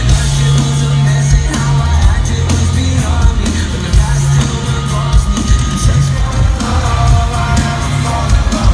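Live rock band playing loudly at a concert, with a heavy, sustained bass line and steady drum hits.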